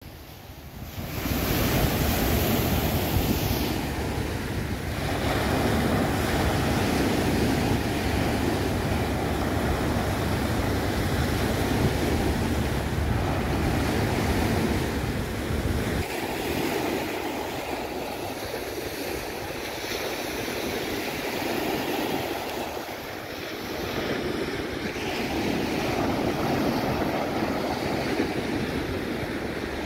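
Small waves breaking and washing up onto a sandy beach, a continuous surf wash, with wind rumbling on the microphone that eases about halfway through.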